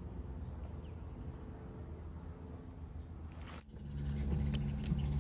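A cricket chirping steadily, a short high chirp about two to three times a second. About three and a half seconds in, the sound cuts to a low steady hum.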